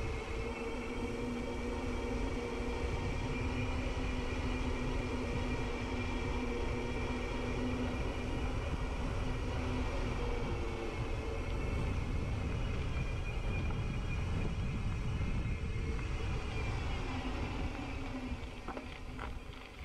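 A mountain bike rolling on a dirt trail: steady tyre rumble and hum, with wind rumbling on the microphone. The noise eases near the end, when a few sharp clicks come through.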